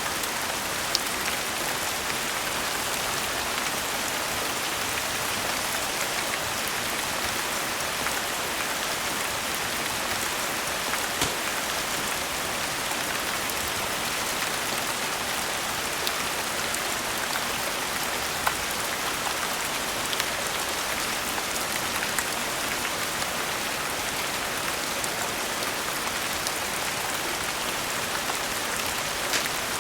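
Steady rain falling, an even dense patter with scattered sharp clicks from individual drops.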